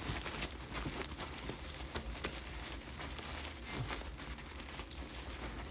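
Henry vacuum cleaner bag crinkling and rustling in a run of irregular crackles as packed dirt and dust are dug out of it.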